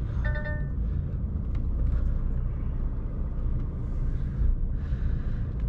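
Truck's diesel engine running steadily at low revs, heard from inside the cab, with a short electronic beep about a quarter of a second in.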